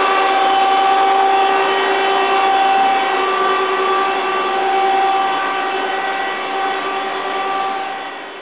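Hydraulic power unit of a 1986 Okuma & Howa NC4PS CNC lathe running: the electric motor and pump make a steady hum with a constant whine. It fades out near the end.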